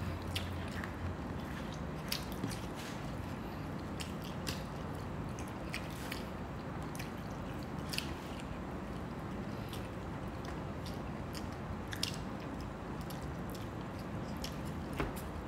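Close-up eating sounds: chewing with scattered short, soft clicks as fried fish and rice are eaten by hand.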